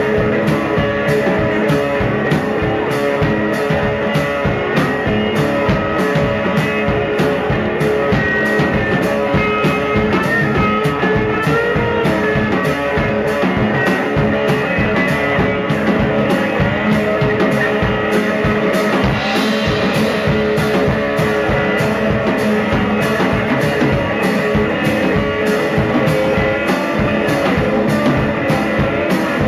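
Live electric blues instrumental: a hollow-body electric guitar played through an amplifier over a drum kit keeping a steady beat, with no singing.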